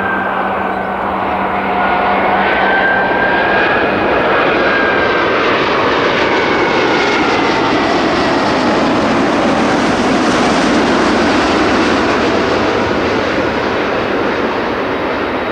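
Airbus A380-841 airliner's four Rolls-Royce Trent 970 turbofans on final approach with the landing gear down, flying low past. The engines make a loud roar with whining tones that slide down in pitch, loudest about ten seconds in and easing off toward the end.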